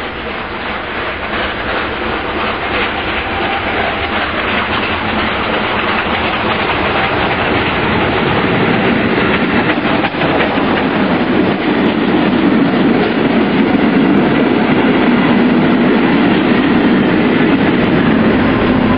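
Historic steam train hauled by FS Class 625 steam locomotive 625.100 approaching and passing close by, its coaches rolling past on the rails. It grows louder through the first half, then holds steady as the coaches go by, with the electric locomotive at the tail passing near the end.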